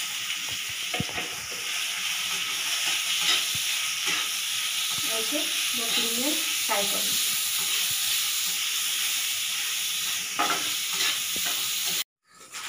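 Sliced onions sizzling in hot oil in a kadai, stirred with a steel spatula that scrapes and taps against the pan. The sound cuts off suddenly near the end.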